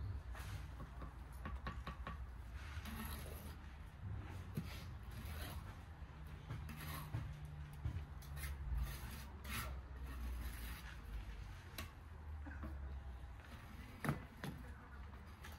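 Bricklaying trowel work: intermittent scraping of a steel trowel through mortar and light taps on the bricks, with a sharper knock near the end, over a low steady rumble.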